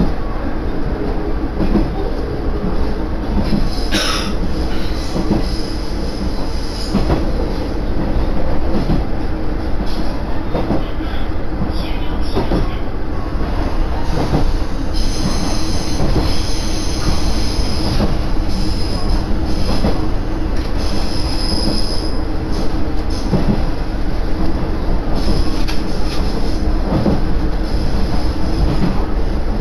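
Diesel railcar of the Koumi Line running, heard from inside the cabin: a steady rumble of the wheels on the track and the engine, with a high wheel squeal that comes and goes for several seconds in the middle.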